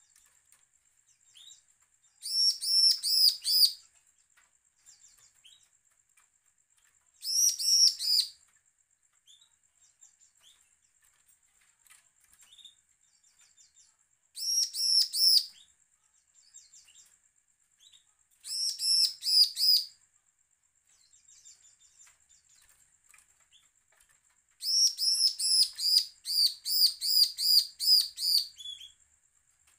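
Bar-winged prinia (ciblek) singing in five bursts of fast, high repeated notes, each burst about a second long and the last one about four seconds, with faint chips in between.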